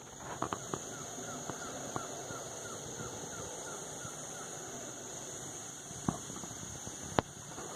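Forest ambience: a steady high-pitched hum over a faint noisy background, with a quick run of short repeated chirps for about three seconds near the start and a few sharp clicks.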